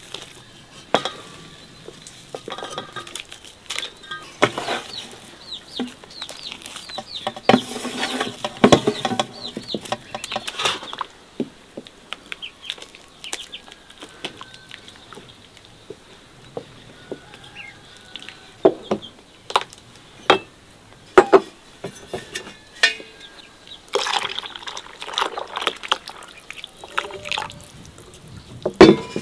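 Spoon stirring mashed potato into liquid in an enamel basin: wet sloshing with sharp clinks of the spoon against the enamel. Near the end, milk is poured from an enamel jug into the basin, and then the stirring and clinking resume.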